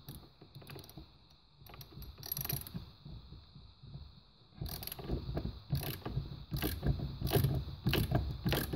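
Socket ratchet wrench clicking as it is swung back and forth on the nut of a mini lathe's tailstock handwheel shaft. There are scattered light clicks at first, then rapid, louder runs of ratchet clicks from about halfway through.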